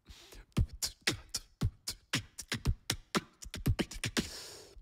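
Human beatboxing into a microphone: a boots-and-cats style beat of deep kick drums that drop in pitch, sharp snares and hi-hat clicks. It ends in a long hiss that cuts off suddenly.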